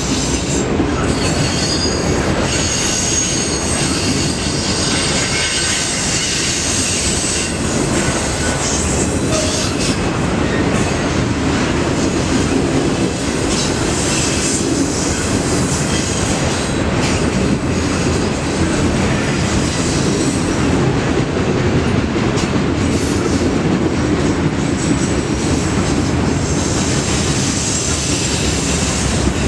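Freight train of autorack cars rolling past steadily: a continuous loud rumble and clatter of steel wheels on the rails. A thin high wheel squeal rises above it now and then.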